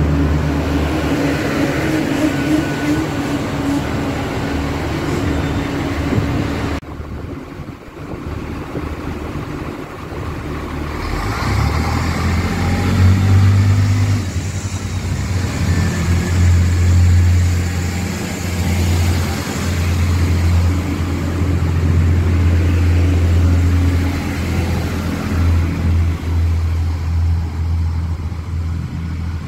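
Irish Rail Class 22000 diesel railcars running along a station platform: a steady engine hum, cut off abruptly about seven seconds in, then engines rising in pitch as a train powers away, staying loud through the rest.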